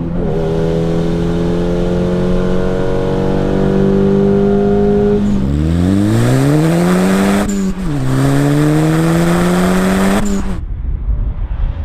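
VW Mk5 GTI's turbocharged 2.0-litre four-cylinder accelerating hard through the gears, heard through its aftermarket exhaust: the engine note climbs steadily, drops sharply at an upshift about five seconds in and again about two seconds later, climbing each time. Near the end the steady note gives way to a rougher, noisier sound as the throttle closes.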